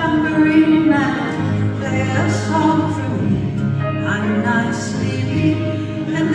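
A woman singing with a strummed twelve-string acoustic guitar in a live folk song, her held, gliding notes heard throughout over the guitar.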